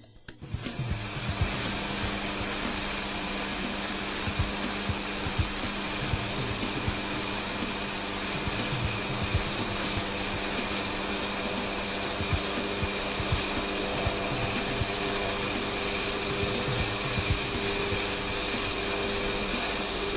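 Woodturning lathe running steadily while a cutter held in a tool post holder takes a cut on the spinning workpiece: a constant motor hum and whine under a continuous scraping of the cutting. It starts about half a second in.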